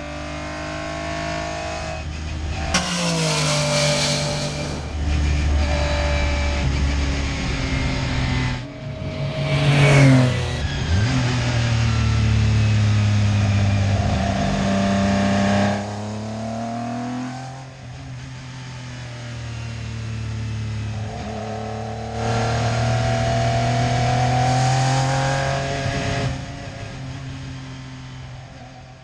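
Metro 6R4 Group B rally car's 3-litre V6 engine revving hard on track, its pitch climbing and dropping again and again through gear changes and lifts. The sound changes abruptly several times, as the edit cuts between shots.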